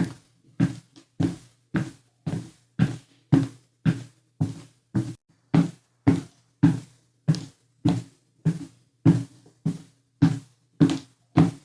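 Footsteps climbing stairs: heavy, evenly paced treads about two a second, each with a deep booming thud.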